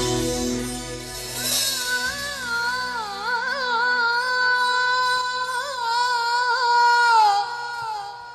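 Egyptian shaabi wedding music. A woman sings one long, winding, ornamented phrase into a microphone over a held keyboard chord, her voice wavering and bending in pitch. The phrase ends about a second before the band comes back in.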